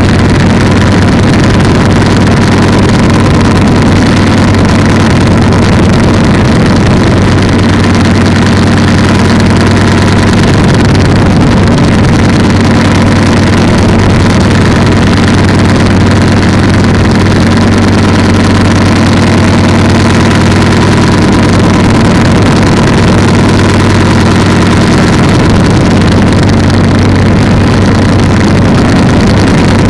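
Polini 190 single-cylinder two-stroke engine on an ATF trike, running loud and steady at constant throttle, with no change in pitch.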